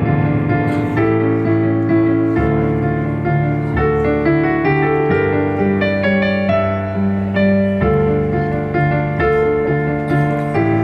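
Background piano music: a slow, gentle melody of sustained notes and chords.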